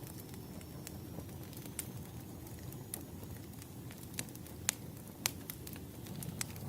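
Wood fire burning: a steady low rumble of flames with scattered sharp crackles and pops, the two loudest snaps coming a little over halfway through.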